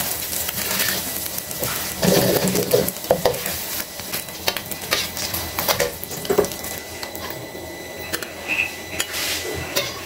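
Metal spatula scraping and clanking against a wok while battered pieces fry in shallow oil with a sizzle. The sizzle thins out in the second half.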